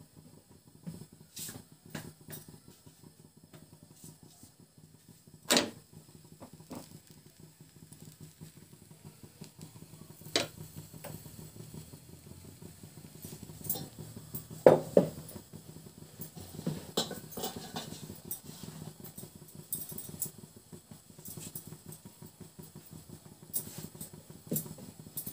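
Scattered knocks and clinks of utensils and hands on an iron tawa as a methi paratha is laid on and cooked, over a low steady hum. The loudest knock comes a little past halfway.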